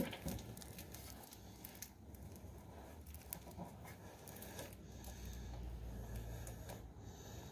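Faint rustling and handling noise as clothing fabric rubs against the camera's microphone, with scattered small ticks and a low rumble that swells a few seconds in.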